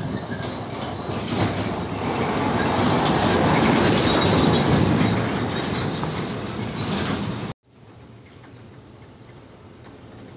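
Mitsubishi Fuso Super Great tractor unit hauling a loaded shipping container on a trailer drives past close by, its diesel engine and rolling tyres and trailer making a heavy rumble that swells to a peak and fades. The sound cuts off suddenly about seven and a half seconds in, leaving a much quieter background with a distant truck approaching.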